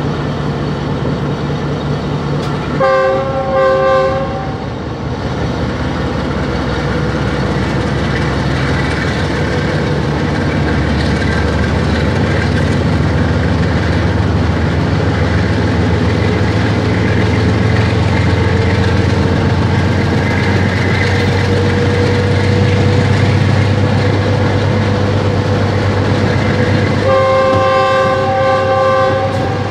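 GE GEU-20 locomotive's 7FDL-12 diesel prime mover running hard under load as the train picks up speed, its note stepping up about ten seconds in. The locomotive's air horn sounds twice: a short blast about three seconds in and a longer one of about two and a half seconds near the end.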